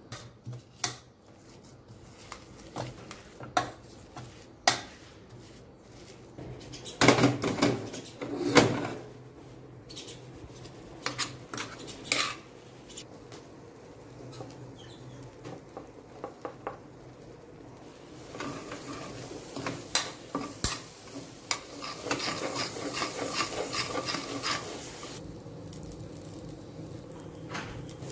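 Steel spoon scraping and knocking against the inside of a metal pressure cooker pot while mixing a thick lentil and jaggery mash, with scattered clinks. From about two-thirds of the way through, the clinking turns quicker and denser.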